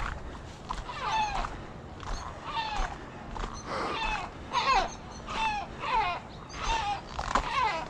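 Gulls giving repeated harsh alarm calls, each cry falling in pitch, about one or two a second and overlapping as if from several birds. The calls are upset at a person walking close by.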